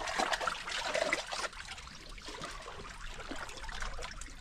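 Sea water lapping and trickling against shore rocks, an irregular sloshing.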